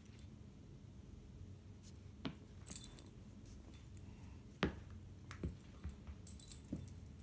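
Metal ID tags on a small dog's collar jingling briefly twice as the dog moves about, with a few soft knocks in between, the loudest about halfway through.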